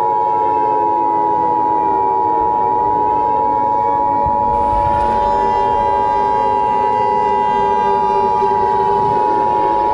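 Emergency Alert System attention signal, the steady two-tone beep of 853 and 960 Hz, held without a break. It is layered over a lower horn- or siren-like drone that slowly sways in pitch and turns brighter about four and a half seconds in.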